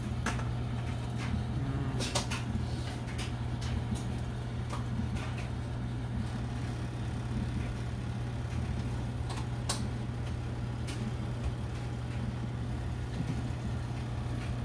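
Steady low motor hum of the oven's fan running, with scattered sharp clicks and crackles over it.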